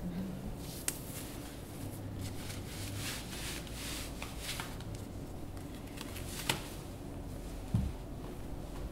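Soft rustling of cloth as a long dress is pulled down and stepped out of, with a few faint clicks and a short low thump a little before the end.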